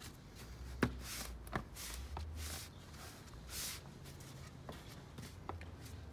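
Plastic engine cover being pressed back down onto its rubber mounting grommets: a few sharp clicks and snaps, the sharpest about a second in, with short scuffs of plastic and gloved hands between them.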